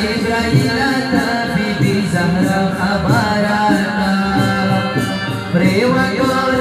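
A Pashto doye song: a singer's voice over instrumental accompaniment, with a held low drone note and a regular percussion beat.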